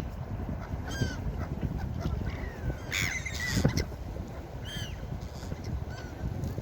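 Gulls calling, several short harsh cries with falling pitch, the loudest cluster about halfway through, over a steady low background rush.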